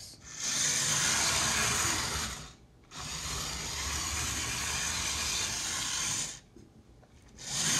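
Electric model train locomotive running loudly along its track, a steady motor whir with wheel rumble. It runs about two seconds, cuts out briefly, runs again for about three seconds, goes quiet, and starts up again just before the end.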